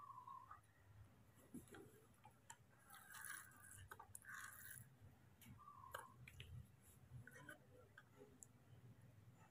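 Quiet, faint clicks and taps of a metal spoon against a small plastic bowl as a baby monkey is fed porridge and milk, with two brief faint chirps, one at the start and one about six seconds in.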